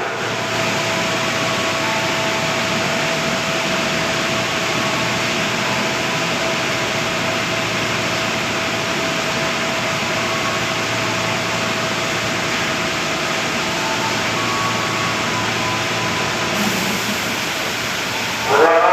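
Heavy rain falling steadily, a constant even hiss, with a faint steady hum through the first two-thirds.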